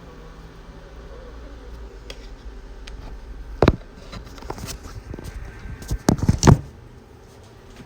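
A low steady hum with a few sharp knocks and clicks: one about halfway in and a louder cluster of knocks near the end.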